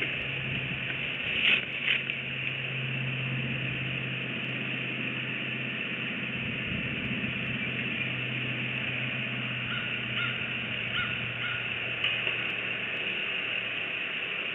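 Outdoor nest-cam ambience: a steady hiss with a low hum underneath. Two sharp sounds come about a second and a half in, and a few short bird calls sound faintly around ten to twelve seconds in.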